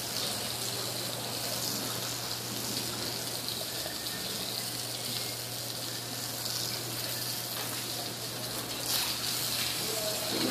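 Steady hiss of water running from a garden hose onto a wet tiled floor, with a steady low hum beneath it.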